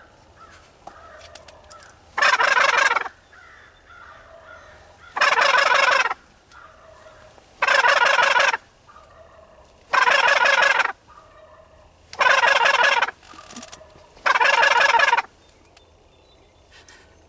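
Six loud turkey gobbles, each a rapid rattling call about a second long, coming every two to three seconds.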